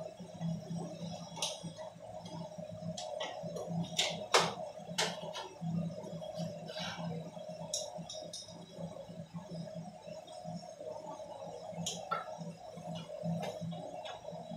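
Scattered clicks and knocks of hand work on a ceiling-mounted air-conditioner unit during a fan-motor repair, the loudest a sharp knock about four seconds in, over a steady background hum and faint music.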